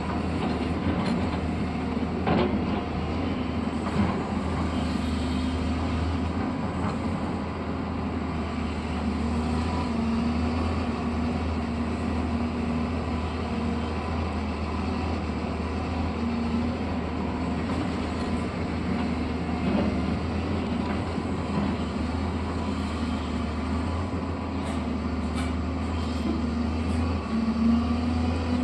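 Construction machine's engine running steadily, a continuous low drone, with a few brief clicks or knocks.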